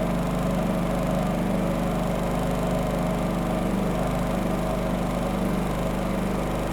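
Pulsar G450RN inverter generator engine running at a steady speed, an even hum.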